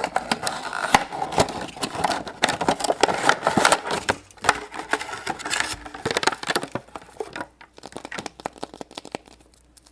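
Hands tearing open and crinkling the wrapper of a toy surprise egg: a dense run of crackles and rustles that thins out and grows quieter near the end.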